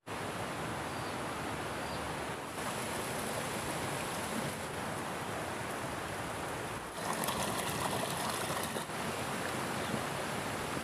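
Steady rushing outdoor background noise with no clear source. Its texture shifts about two and a half seconds in, and again near seven seconds in, where it turns brighter and scratchier for a couple of seconds.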